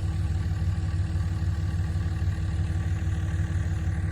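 A vehicle engine running steadily: an even low rumble with a steady hum over it, holding constant throughout.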